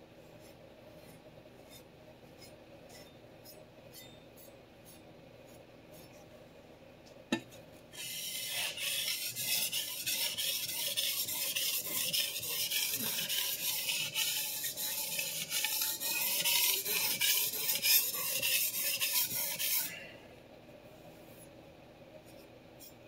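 Steel kitchen knife blade scraped back and forth across a wet sharpening water stone, a rough rasping noise that starts about eight seconds in and stops about twelve seconds later. One sharp click comes just before the scraping starts.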